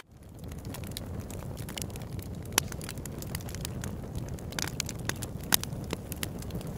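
Burning charcoal in a grill crackling, with scattered sharp pops, over a steady low rumble of wind on the microphone.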